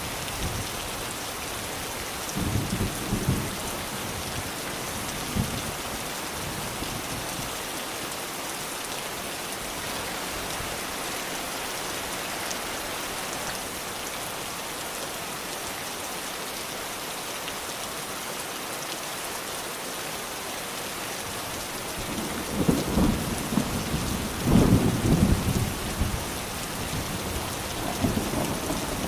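Steady rain with distant thunder. A short low rumble comes a few seconds in, and a longer, louder roll of thunder comes about three quarters of the way through.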